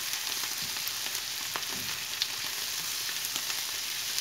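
Ground beef, mushrooms, onions and green peppers sizzling in a hot non-stick frying pan as a spatula stirs them, a steady hiss with scattered light clicks and scrapes from the spatula.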